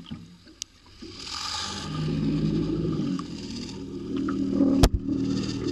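Boat engine running steadily, a low hum with a sharp click near the end.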